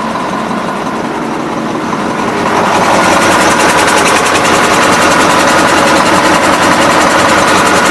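KAMAZ truck's diesel engine running steadily, growing louder about two and a half seconds in and then holding. The air dryer is not sneezing: the fault, caused by desiccant granules in the filter and check valve, is cured.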